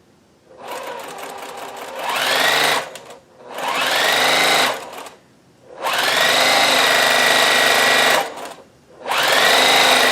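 Juki TL-2010Q straight-stitch sewing machine stitching piped cord, run in four separate bursts. Each burst starts with a rising whine as the machine speeds up, and the first starts slowly before picking up speed about two seconds in.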